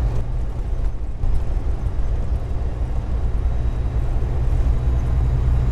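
Vehicle engine running steadily with a low, even drone.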